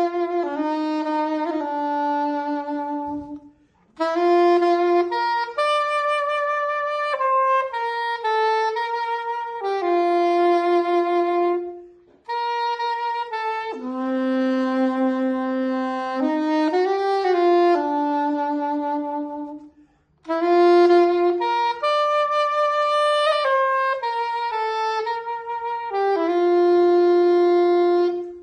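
Curved Yanagisawa 991 soprano saxophone played solo in a melodic line of held and moving notes, with short breaks for breath about three and a half, twelve and twenty seconds in.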